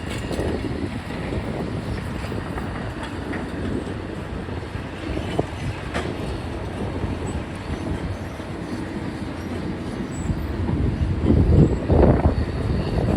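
Heavy tracked demolition machinery running, its diesel engine droning under metallic clanking and squealing from the steel tracks as it travels. It grows louder about eleven seconds in.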